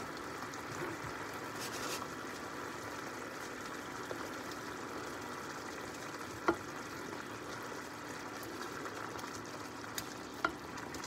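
Masala sauce with mushrooms bubbling and sizzling in a large skillet, a steady hiss, as a spoon stirs it and clicks sharply against the pan three times in the second half.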